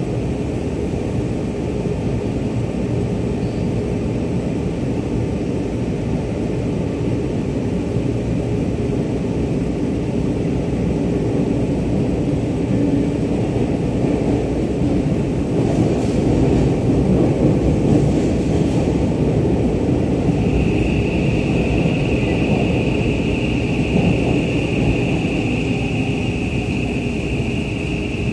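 Seibu 6000 series electric train heard from inside the car while it runs through a subway tunnel: a steady wheel-and-rail rumble that swells in the middle. About two-thirds of the way in, a steady high-pitched tone joins in as the train slows into the station.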